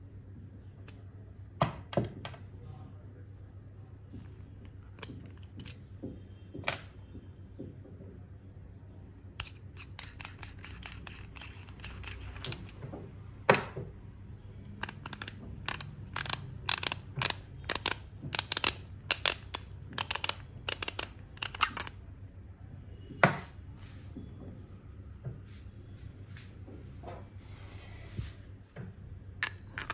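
Small hard objects and packaging being handled: scattered clicks and knocks, then a quick run of sharp clicks in the middle and a brief rustle near the end, over a low steady hum.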